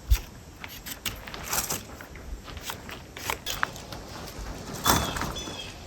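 Light rustling and scattered knocks of dry sticks being handled for a campfire. Near the end there are a couple of short high chirps.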